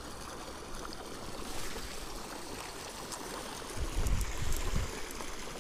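Steady rush of running water, with a brief low rumble about four seconds in.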